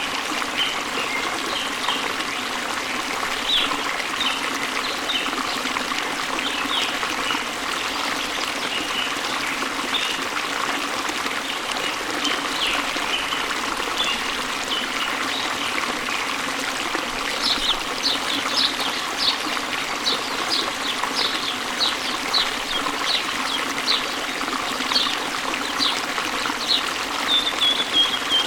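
Running water trickling steadily, with small birds chirping over it. From a little over halfway through, one bird repeats a short high chirp about twice a second.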